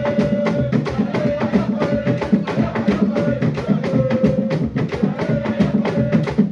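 Live traditional Central African dance music: drums played in fast, steady strokes with a sharp clacking percussion on top, and voices holding short sung notes over the beat.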